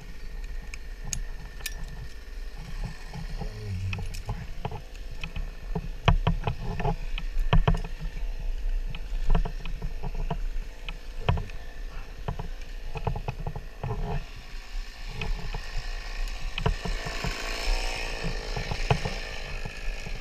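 A tree climber's rope, hardware and movement against the branches: irregular knocks and clicks over a steady low rumble, with a rustle of branches swelling near the end.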